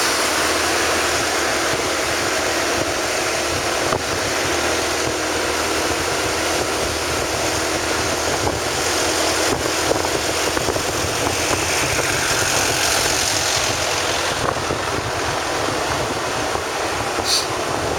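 Vehicle engine running steadily while on the move, with wind rushing over the microphone.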